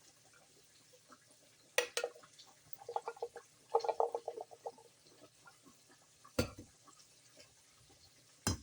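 Kitchen handling sounds at low level: a couple of clicks, two short runs of rapid rattling ticks, a single knock, then a clatter of pots or utensils near the end.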